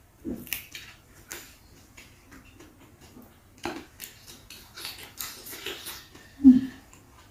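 Close-miked eating: crisp crunching and chewing of raw vegetables and leaves with wet mouth clicks, and one louder low thud near the end.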